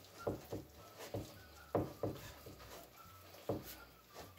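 Hands kneading a soft yeast dough of flour and cornmeal, with warm water just added, in a plastic bowl: a run of short, irregular sounds, the loudest nearly two seconds in.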